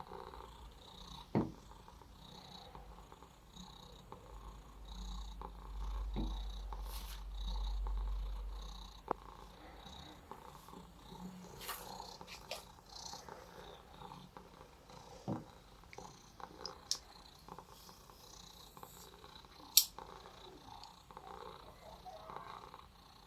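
A domestic cat purring softly, with a few sharp clicks, the loudest near the end.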